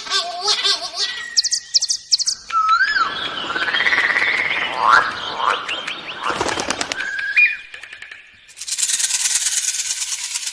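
A run of different bird calls in quick succession: a harsh, buzzy call, then rapid high chirps and sliding whistles. Near the end comes a dense, even hiss that lasts about two seconds.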